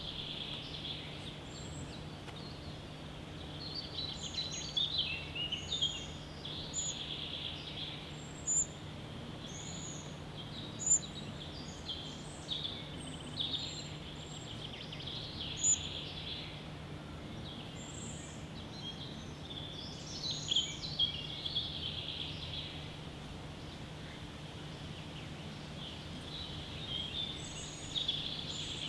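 Small birds chirping and calling in woodland: many short, high chirps come and go in clusters, with three sharp, louder high notes standing out in the middle. A steady low hum runs underneath.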